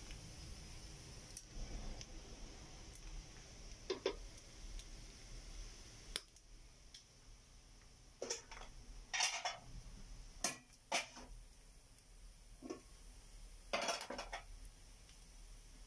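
Diced pork deep-frying until crisp in a wok of hot oil: a steady sizzling hiss, broken by about a dozen sharp crackles and knocks scattered through, the longest about nine and fourteen seconds in.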